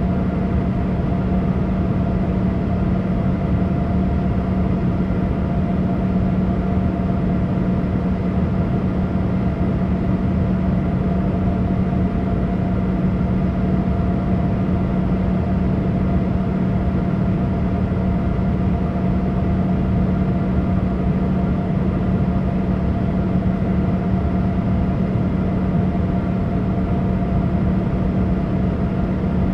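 Steady cabin drone of a Boeing 787 airliner: engine and airflow noise with a low hum and a fainter higher tone, unchanging throughout.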